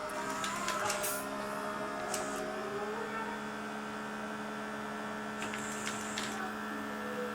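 Small electric motors and plastic gearing of a fischertechnik model dredger running with a steady hum, with a rising whine about two to three seconds in and a few light clicks.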